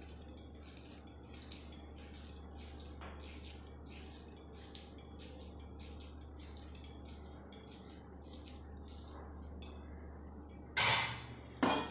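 Hands pressing and rolling a dry oat-and-seed laddoo mixture in a kadhai: light crackling and rustling with small clinks, over a low steady hum. Two louder scraping bursts come near the end.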